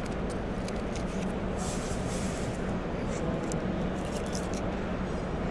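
Steady background hubbub of a busy convention hall, with a low hum and a few faint small clicks and rustles.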